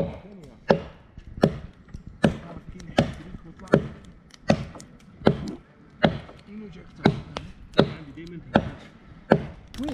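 Steady chopping: about a dozen evenly spaced strokes, one every three quarters of a second.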